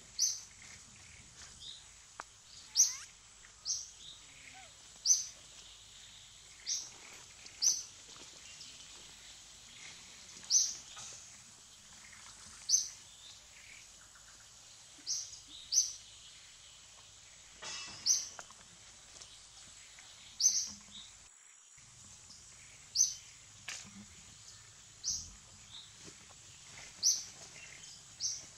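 A bird calling a short, high chirp over and over, roughly every one to three seconds, above a steady high hiss of forest background.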